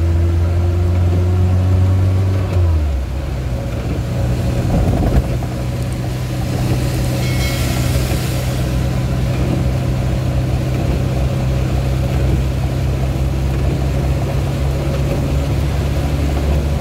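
Suzuki Carry 1.0's four-cylinder engine running under way, heard from inside the cab. Its note climbs slightly, drops abruptly about two and a half seconds in, then holds steady, with a brief hiss about seven seconds in.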